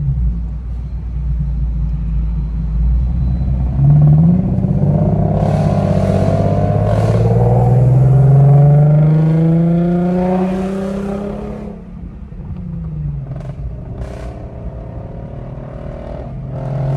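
Infiniti Q50's 3.7-litre V6 running through test pipes, which replace the catalytic converters, so the exhaust is loud. About four seconds in it revs sharply, then its pitch climbs steadily under acceleration for about seven seconds before dropping away near the twelve-second mark and settling into a steady lower note.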